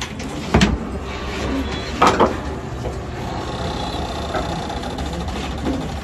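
A sharp knock about half a second in, then a quick double knock about a second and a half later, over a steady low rumble.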